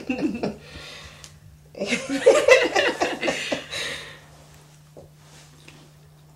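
Two women laughing in a burst about two seconds in that lasts about two seconds, over a steady low electrical hum.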